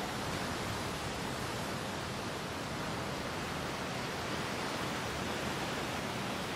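Ocean surf: a steady, unbroken wash of waves.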